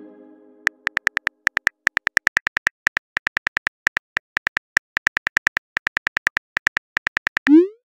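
Simulated phone keyboard typing: a fast, irregular run of short key clicks, about five or six a second, as a text message is typed. Near the end comes a quick rising whoosh, the message-sent sound.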